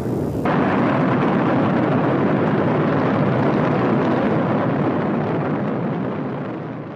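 Saturn V rocket engines during the climb after launch: a steady, loud rushing noise that gets a little louder about half a second in and fades out near the end.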